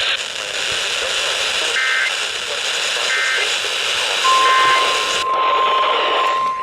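Weather-radio static hiss with three short warbling data bursts about a second apart, the EAS end-of-message code. About four seconds in, a steady single-pitch 1050 Hz NOAA Weather Radio alert tone starts, announcing the next warning. The hiss drops away about a second after the tone begins.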